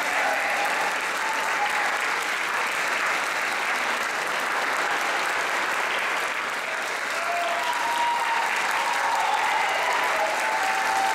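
Concert audience applauding steadily, a dense, even clapping that holds at one level.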